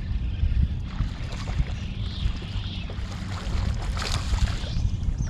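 Wind buffeting the microphone in a gusty, uneven rumble over water noise around a small boat, with a brief splash-like burst about four seconds in.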